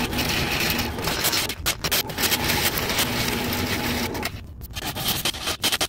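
Sectional drain-cleaning machine running, its spinning coiled steel cable being fed by gloved hand into a sewer cleanout to clear a backed-up line. The noise drops briefly about four and a half seconds in, then picks up again.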